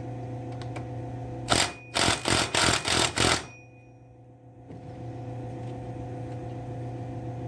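Chainsaw clutch being tightened onto the crankshaft with a clutch tool: a quick run of about six loud, rattling bursts about a second and a half in, over a steady low hum.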